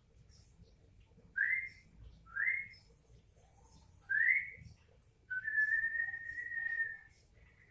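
Whistling: three short rising notes, then one long held note lasting nearly two seconds.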